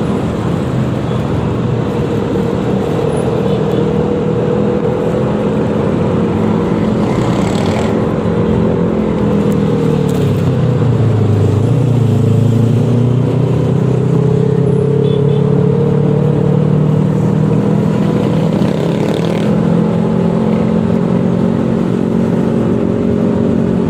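Yamaha XMAX 300 scooter's single-cylinder engine running steadily under way, with wind and road noise. About ten seconds in the engine note drops as the scooter slows, then rises again as it picks back up to a steady speed.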